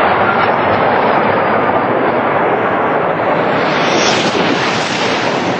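TGV V150 high-speed train passing at about 574 km/h: a loud, steady rushing roar that turns brighter and hissier about four seconds in.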